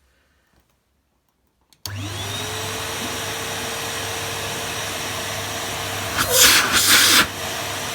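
Numatic Henry 160 vacuum cleaner switched on for the first time: a click, then the motor spins up with a rising whine that settles into a steady run. A louder rushing noise comes for about a second near the end, and the motor sounds healthy.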